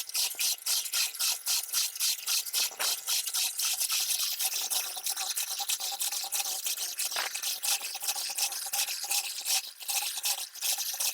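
Rapid, rhythmic scraping strokes, several a second, like rasping or rubbing.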